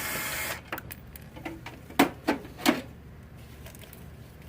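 A power tool runs with a steady whir and stops about half a second in, then three sharp knocks follow close together about two seconds in as crate parts and hardware are handled.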